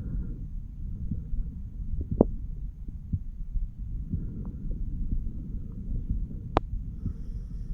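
A 34-year-old man's heartbeat heard through a stethoscope on his chest during auscultation: a steady run of muffled low thuds. Two sharp clicks stand out, about two seconds in and near the end.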